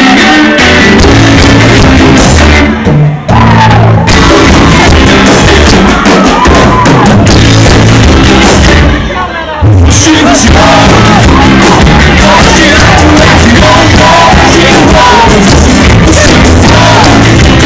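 Live rock band playing loud, with electric guitar, bass, drums and a sung vocal line. The band drops out briefly twice, about three seconds in and again around nine seconds.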